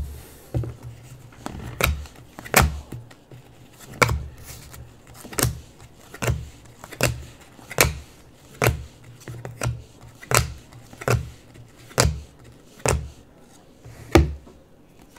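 Trading cards being laid down one at a time onto a stack on a table, each landing with a sharp tap, about one every second.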